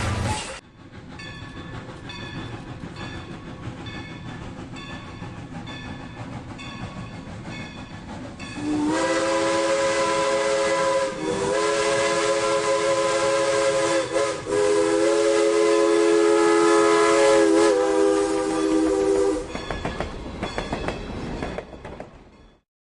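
Rail King toy train set's electronic sound effects: a rhythmic chugging loop, then a long whistle tone held for about ten seconds with a few small dips in pitch, then the chugging again until it cuts off abruptly near the end.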